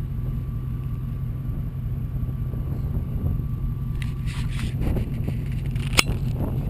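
Pickup truck engine idling, a steady low rumble, with rustling and scraping about four seconds in and one sharp click near the end.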